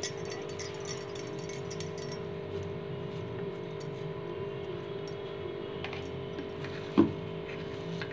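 Hands working and shaping a soft ground-pea kabab mixture in a plastic bowl, with light jingling clinks of jewellery on the hands during the first two seconds and one sharp knock about seven seconds in. A steady hum runs underneath.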